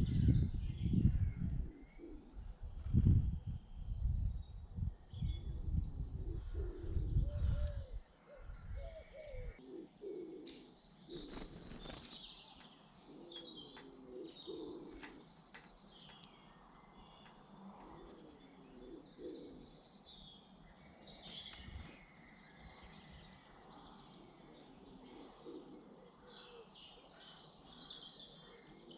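Garden birds: small songbirds chirping and twittering high up throughout, and a pigeon cooing in repeated low phrases from about ten seconds in. A loud low rumble runs through the first eight seconds, then stops.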